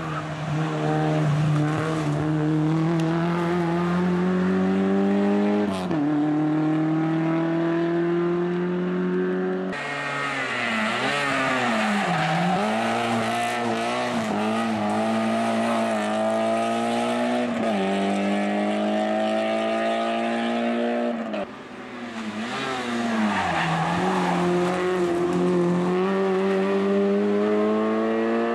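Rally car engines at full throttle on a special stage, pulling hard with the pitch climbing and then falling back at each gear change. The sound shifts abruptly about ten seconds in and again about twenty-one seconds in, as the next car takes over.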